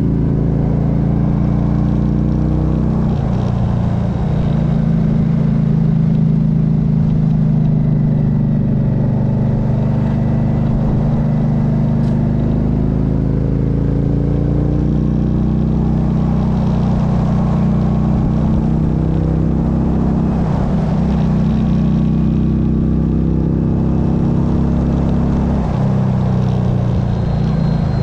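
Motorcycle engine running at road speed, its pitch slowly rising and falling with the throttle, over a steady rush of wind.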